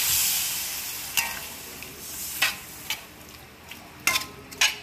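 Loach pieces sizzling in a metal wok as coconut milk is poured in; the loud sizzle dies down over the first couple of seconds. Then a metal spatula stirs the pan, scraping and clinking sharply against the wok about five times.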